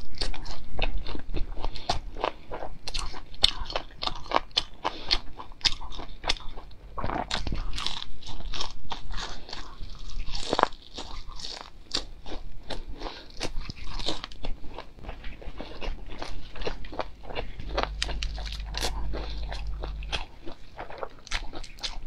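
Crispy deep-fried battered enoki mushrooms being bitten and chewed close to the microphone: dense, rapid crunches without pause.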